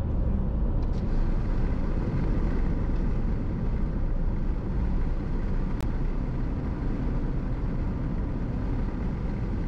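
Car driving along a highway: steady, low road and engine noise.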